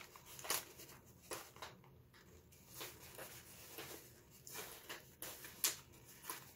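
Faint rustling and a handful of short, sharp paper crackles as a printed-paper chip bag's top end is squeezed and pressed shut with fingers.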